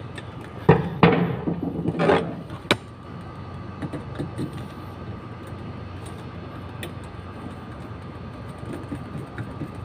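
Hands handling control wires at a relay socket: a few scuffs and knocks in the first couple of seconds and one sharp click close to three seconds in, then faint ticks over a steady hum.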